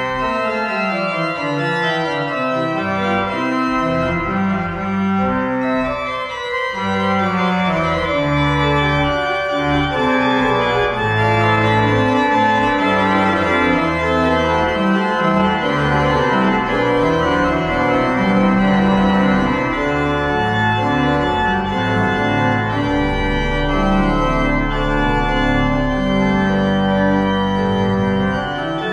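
Organ music: sustained chords over a slowly moving bass line, with a deep bass note held for several seconds near the end.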